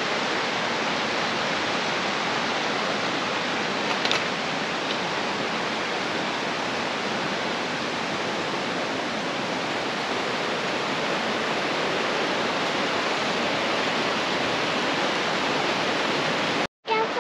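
Steady, even rush of flowing water, stopping abruptly near the end.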